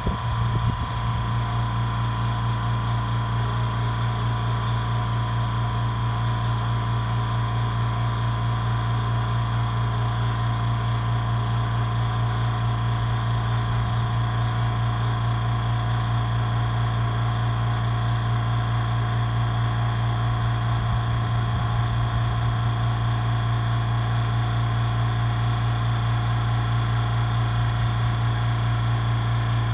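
California Air Tools 10020C ultra-quiet compressor, 2 hp motor and pump, running steadily to fill its 10-gallon steel tank, at its low running level after the easy-start valve has closed. A constant low hum with a steady higher whine.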